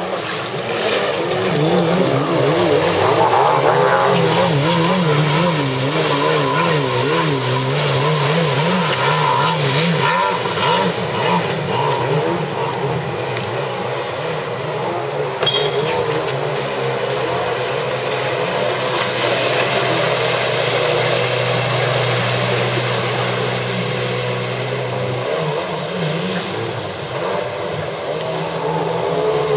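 Stock engine of a Yamaha stand-up jet ski, revving up and down over and over as it is thrown through freestyle spins, with a steadier stretch of held revs about two-thirds of the way in.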